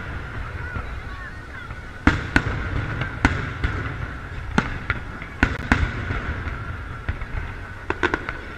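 Aerial firework shells bursting: a string of sharp booms at irregular intervals beginning about two seconds in, several coming close together near the end, over the steady chatter of a crowd.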